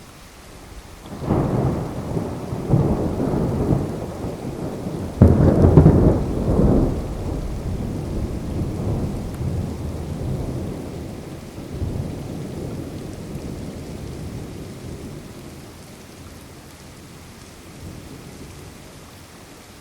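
A peal of thunder rolling over steady rain: the rumble builds about a second in, is loudest around five to six seconds, then fades slowly, leaving the rain.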